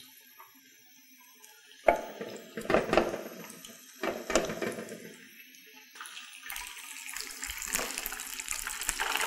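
A few short handling sounds as bread goes into the pan, then from about six and a half seconds in a steady, growing hiss of breaded chicken sizzling as it fries in hot oil.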